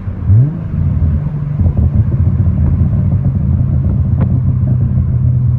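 Nissan Z roadster's V6 engine on the move with the roof open. The engine note dips just after the start, climbs quickly, then holds a steady, higher drone. Wind noise runs over it.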